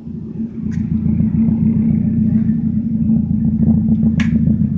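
Mazda 323 engine running steadily through an exhaust with the muffler removed and replaced by a plain straight pipe, giving a loud, low, evenly pulsing exhaust note. It grows louder over the first second, then holds steady, with a couple of short sharp clicks over it.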